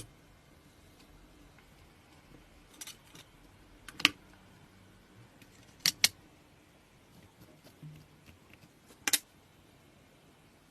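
Sharp, separate clicks and clinks of hard objects being handled, about seven over ten seconds, with a quick double about six seconds in. The loudest come about four and nine seconds in.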